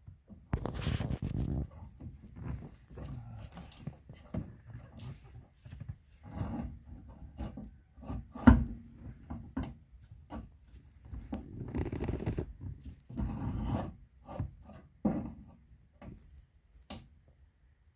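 Hands and tools working on a car's fuel pump during replacement: irregular rubbing and scraping with scattered clicks, and one sharp knock about halfway through.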